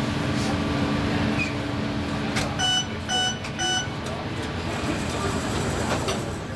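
Three short, evenly spaced electronic beeps about half a second apart, the door-closing warning of a Helsinki Metro M100 train standing at a station, over the steady hum of the train's equipment.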